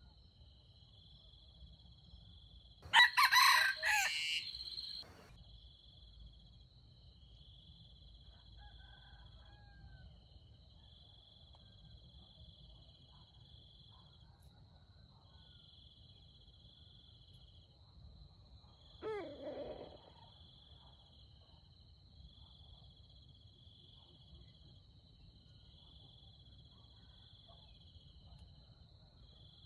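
Red junglefowl rooster crowing once, loud and close, about three seconds in, lasting about two seconds. A fainter, shorter fowl call follows about sixteen seconds later. Insects trill throughout: a steady high buzz with a pulsing chirp about every two seconds.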